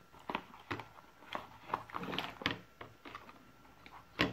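Handling noise on a wooden workbench as a cardboard box and a plastic panel meter are moved and set down: a string of light, irregular knocks and scuffs, with a sharper knock near the end.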